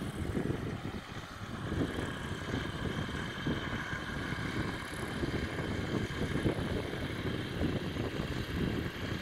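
Wind buffeting the microphone in gusts, over the steady far-off drone of a light aircraft's engine.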